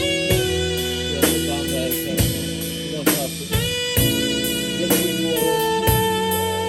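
Band music with no singing: guitar and sustained pitched notes over a drum kit keeping a steady beat.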